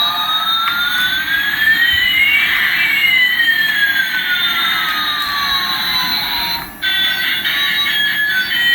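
Electronic jet-engine sound effect from a toy Airbus A380's small speaker: a hiss with two synthetic whining tones, one rising and one falling, crossing each other midway. About seven seconds in it switches abruptly to a beeping electronic tune.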